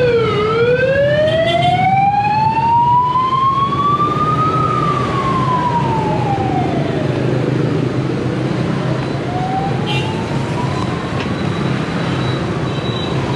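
Emergency-vehicle siren wailing, its pitch sliding slowly down, then up over about four seconds, down again and back up, over a steady low hum.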